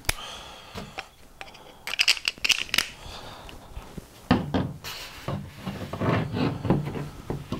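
Handling noise from taking apart a hot air rework station: scattered clicks and scrapes of a screwdriver and of the unit's wiring, connectors and sheet-metal front panel being handled, with a cluster of clicks about two seconds in, a sharp click a little after four seconds, and busier rubbing and rustling from about five seconds.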